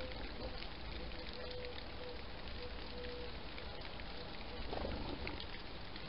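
A pigeon cooing in the background, a run of soft low notes in the first half and a fuller call near the end, over a steady hiss with scattered faint ticks.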